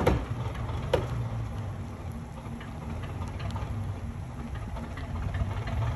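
A 1961 crane's engine running steadily at low revs as it lifts the boat. A couple of short knocks come in the first second.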